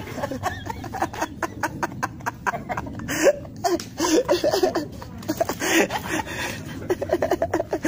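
Hearty laughter from an elderly woman and a man, broken into many short laughs.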